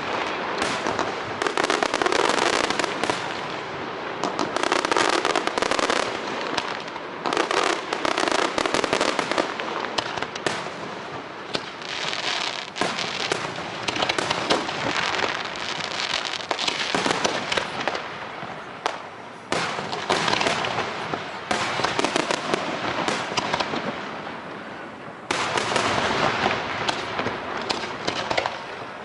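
Fireworks display: a dense, continuous run of bangs and crackling shells, swelling in several louder surges, the last about 25 seconds in.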